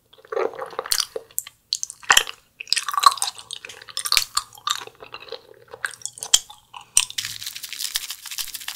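Chewing and biting of watermelon gummy jelly, in irregular strokes. About seven seconds in, a steady hiss as tiny Nerds candies are poured from their box onto a jelly block.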